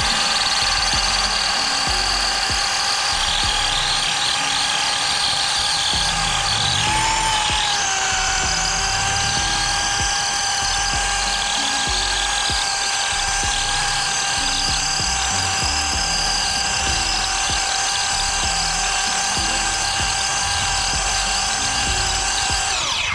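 An electric power tool's motor running steadily with a high whine. Its pitch bends about seven seconds in and dips briefly near the end. Background music plays underneath.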